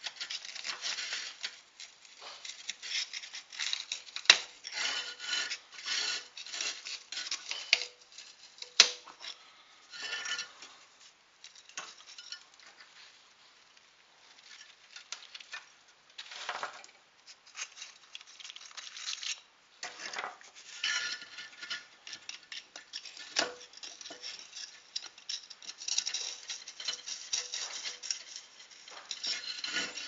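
Soft refractory kiln brick scraping and crumbling as drilled-out cores are pried loose with a small metal tool, with a few sharp snaps as cores break off.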